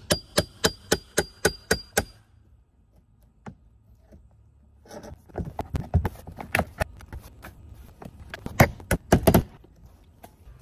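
Hammer striking a flat pry bar to drive it behind cedar siding: about eight quick metallic strikes in two seconds, ringing. After a pause, a second run of irregular knocks and thuds as the rotted siding board is pried loose, loudest near the end.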